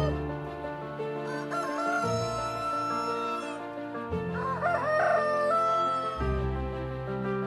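Rooster crowing twice, each crow a long call that rises and then holds, the first about a second in and the second past the middle, over soft background music.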